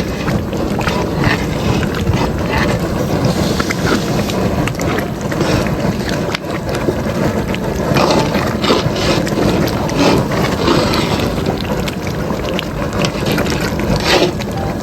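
Jambalaya being stirred in a large cooking pot, with short scraping and knocking strokes over a steady loud rumble.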